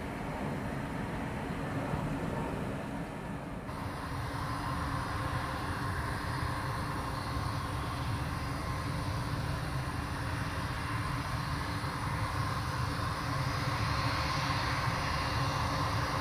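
Airbus A320-family jet airliner engines on approach: a steady rumble with a faint whine. The sound changes abruptly about four seconds in, where one landing aircraft gives way to another, and the whine grows a little stronger toward the end.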